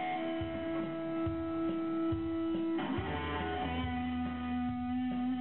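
Small live band of electric guitar, electric bass and keyboard playing slow, sustained notes. The chord changes about halfway through, and the low bass comes up from there.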